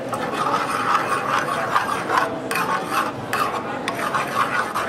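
A metal spoon scraping and stirring against the bottom of a metal skillet of onions in reducing white wine, in a quick rhythm of about three strokes a second.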